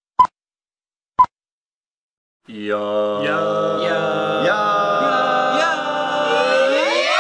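Two short countdown beeps a second apart, then after a brief pause a group of voices sings a sustained chord that swells and glides upward in pitch near the end.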